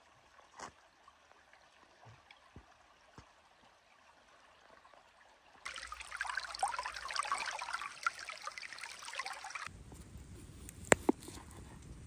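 Shallow creek running over stones between snowy banks, an even rush and babble of water for about four seconds in the middle. Before it, a quiet stretch of forest with a few faint ticks. After it, a steady low rumble with two sharp clicks.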